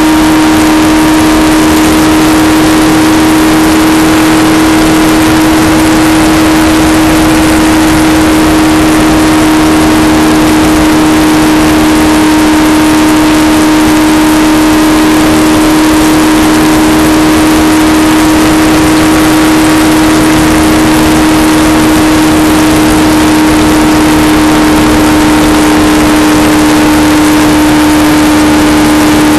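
Stock car's V8 engine running flat out at a steady high pitch as it laps the oval, heard from inside the cockpit with wind and road noise under it. The pitch barely changes, dipping slightly near the end.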